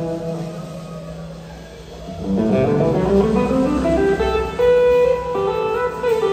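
Live blues-rock band led by electric guitars, recorded from the audience: the playing thins out and drops in level for about two seconds, then a quick rising run of notes leads into loud, sustained guitar lines.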